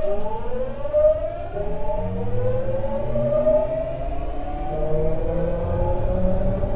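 Tokyu 9000 series EMU accelerating from a stop, heard inside the car: its traction motors whine under the Hitachi GTO-VVVF inverter, several tones rising in pitch together as speed builds, over a low rumble from the running gear.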